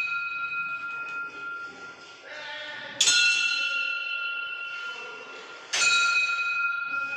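A metal bell struck twice, about three seconds apart, each strike ringing on and slowly fading, with the ring of an earlier strike still dying away at the start. The even spacing is typical of the bell on a large hand-turned prayer wheel, which rings once on each turn.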